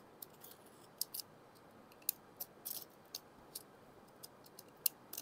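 Box cutter slitting the seals and plastic wrap on a cardboard smartphone box, with the box turned in the hands: faint, irregular small sharp clicks and crackles, about a dozen in all.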